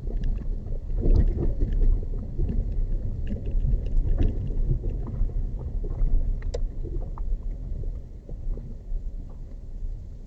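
A vehicle driving over a rough unpaved road: a heavy, uneven low rumble with scattered knocks and rattles as it jolts along.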